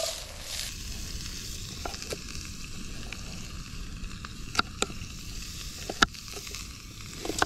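Bacon sizzling steadily in a pot over a campfire, with a few sharp knocks of a knife cutting through red potatoes onto a wooden board, the loudest about two-thirds of the way in and again near the end.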